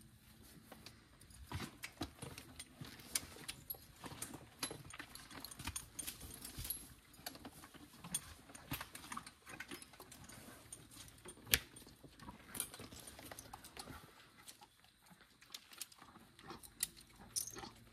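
Faint, irregular clinks and jingles of metal draft-horse harness hardware being handled as the lines are unhooked, with a handful of sharper clicks.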